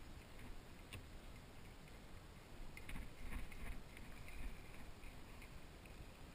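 Faint kayak paddling: water sloshing around the paddle blade and hull, with a few light knocks about one and three seconds in.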